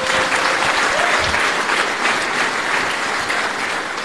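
A large crowd applauding, a dense steady clapping.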